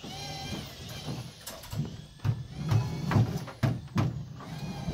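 A series of irregular knocks and thumps, about eight in all, loudest in the middle.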